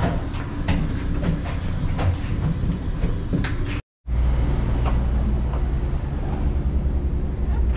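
Low rumble aboard a passenger ferry under way, with scattered knocks and clicks. After a brief silent cut about four seconds in, a louder, steadier low rumble takes over.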